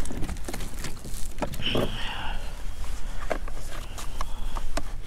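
Scattered knocks, clicks and rustles from a red drum being handled on a plastic kayak with a lip gripper, landing net and plastic measuring board, over a steady low wind rumble on the microphone.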